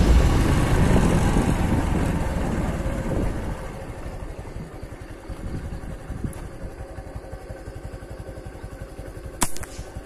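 Motorcycle engine running, loud at first and dying down over the first few seconds to a steady, evenly pulsing idle. A single sharp click comes near the end.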